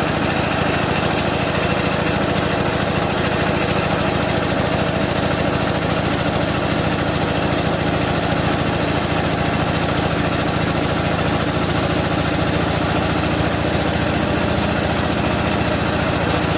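Ural flat-twin motorcycle engine running steadily on a single cylinder, the other cylinder cut out, exhausting through a "bomba" silencer. It is held at a constant speed while that cylinder's carburettor is balanced.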